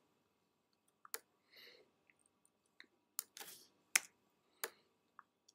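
Faint computer mouse clicks, a few sharp single clicks a second or so apart, as anchor points are placed with the pen tool in Adobe Illustrator, with a couple of soft rustles between them.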